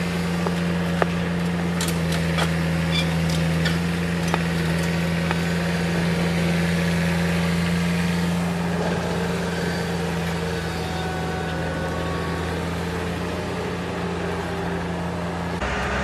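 Engine of a paving-stone laying machine running at a steady hum. Over the first few seconds come a series of sharp taps as concrete paving blocks are knocked into line with a mallet. Just before the end the hum changes abruptly to a different engine.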